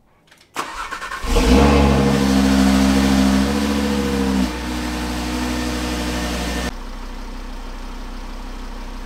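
Audi RS3's turbocharged 2.5-litre five-cylinder engine cranked by the starter and catching about a second in. It runs at a raised start-up idle, then settles lower in two steps, about halfway through and again near the end.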